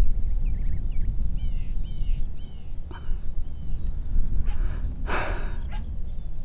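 Short high-pitched curved calls repeating over a steady low rumble, then a single harsh noisy burst about five seconds in.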